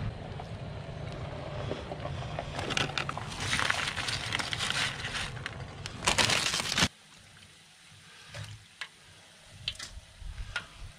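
Wind rumbling on the microphone, with clicks of a plastic fork and container as food is dished out and a loud rustle near the six-second mark. After a sudden cut it goes quieter: faint frying hiss from hush puppies in hot oil, with a few metal taps of a knife in the pot.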